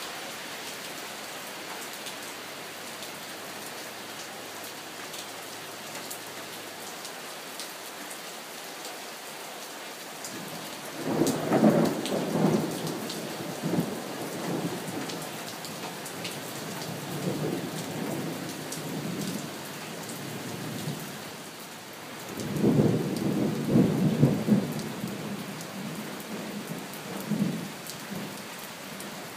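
Steady rain falling, with thunder rolling in twice: a loud rumbling peal starts about a third of the way in and dies away in smaller rolls, and a second loud peal comes about three-quarters of the way through, trailing off in a last rumble near the end.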